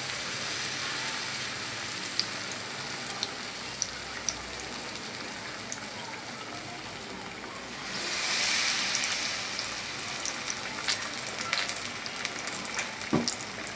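Battered cauliflower pakoras sizzling in hot oil in a frying pan, with scattered small crackles. The sizzle swells about eight seconds in as a fresh piece of batter goes into the oil, and there is a sharp knock near the end.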